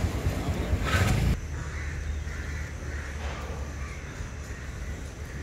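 Road traffic noise that cuts off suddenly about a second and a half in, giving way to quieter outdoor ambience in which crows caw several times.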